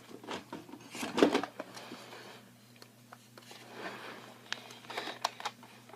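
Light handling noises from a plastic Nerf toy shotgun being held and aimed: scattered small clicks and rustles, with a louder rustle about a second in, over a faint steady hum.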